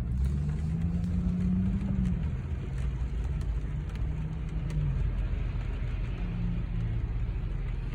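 Inside the cabin of a Lexus LS430 driving on a wet road: the low hum of its 4.3-litre V8 rises in pitch over the first two seconds, then settles, over a steady hiss of tyres on the wet road.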